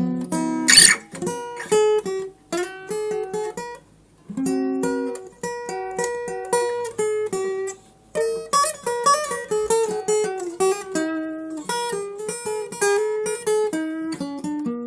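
Acoustic guitar played solo: a melody of plucked single notes mixed with chords, with a couple of short pauses between phrases.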